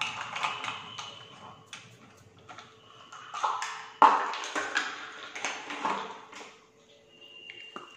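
Light clinks and knocks of a steel teaspoon and small kitchen containers being handled on a tabletop, with one sharper, louder knock about four seconds in.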